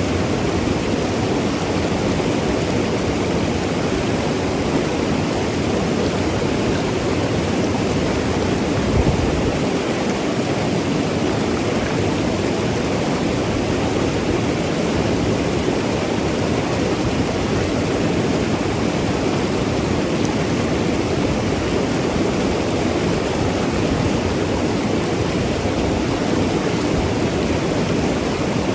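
Mountain river rushing and gurgling over rocks, a steady full water sound, with one brief low thump about nine seconds in.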